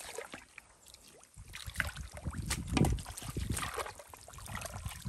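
Hands squelching and sloshing through wet mud and shallow muddy water while groping for fish, in irregular splashes, the loudest a little under three seconds in.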